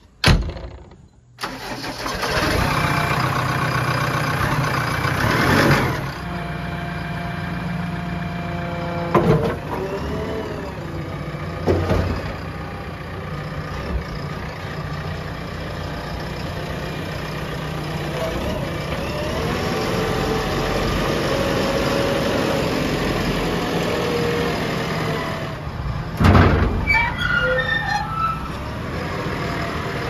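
JCB 3DX backhoe loader's diesel engine starting after a sharp click, catching about a second and a half in, then running steadily. A few short clunks come from the machine, one near the end.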